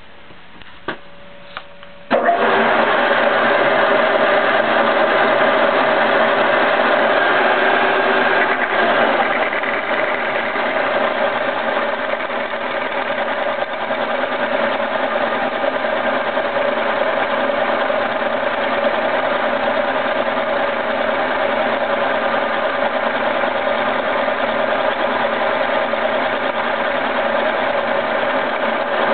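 Soviet 6T10 milling machine turning a boring head at 560 RPM: a low running hum with two clicks, then about two seconds in an abrupt jump to a loud, steady cutting sound as the insert machines the welded steel bore with a 1 mm cut.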